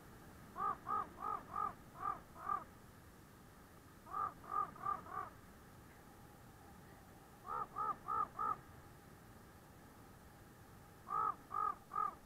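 Crow cawing in four runs of about four to six harsh caws each, a pause of a second or two between runs.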